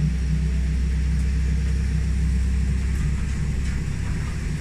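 Safari tram running, a steady low rumble from its drive and wheels; the deepest part of the rumble eases off about four seconds in.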